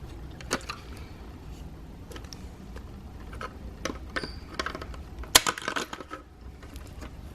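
Small plastic clicks and rattles as the side-mirror switch is worked out of its plastic holder by pressing its retaining tab, with one sharp snap about five seconds in.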